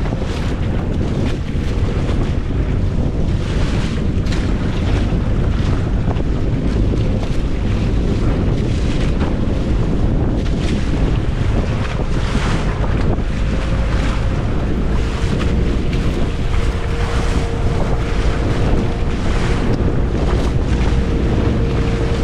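Wind buffeting the microphone and sea water washing around a small fishing boat at sea, a steady heavy rumble with irregular gusts. A faint steady tone runs underneath.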